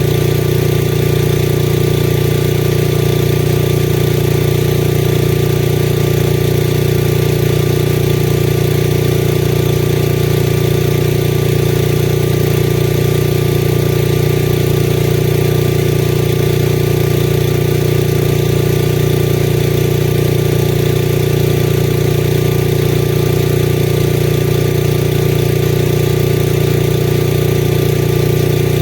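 Lincoln Weldanpower 225 engine-driven welder running at a steady speed, with no change in pitch or level.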